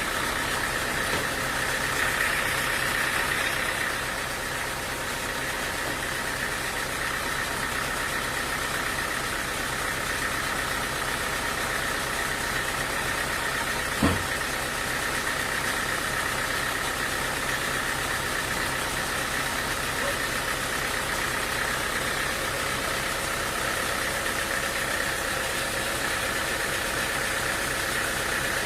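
Sawmill machinery running steadily with an even, unchanging drone, and a single short knock about halfway through.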